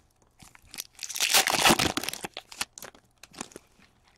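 Foil wrapper of a hockey card pack being torn open and crinkled, loudest from about one to two seconds in, followed by scattered small clicks as the cards are handled.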